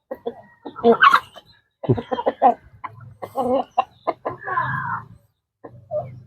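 Chickens clucking in a quick series of short calls as they feed on malunggay (moringa) leaves.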